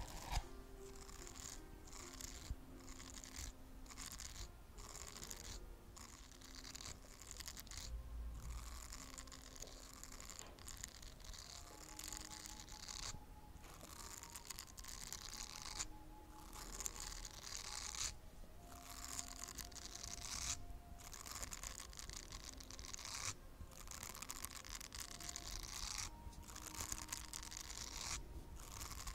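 Repeated scratchy brushing strokes close to the microphone, each one to three seconds long with short pauses between them.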